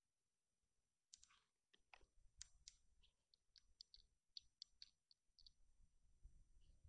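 Near silence with faint, irregular small clicks and ticks, about a dozen over a few seconds, starting about a second in, and a faint low rumble near the end.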